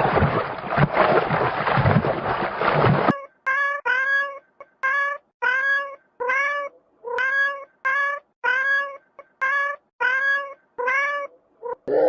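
A cat meowing over and over: about a dozen short meows in quick succession, each rising and then falling in pitch. Before the meows there are about three seconds of loud, rough noise.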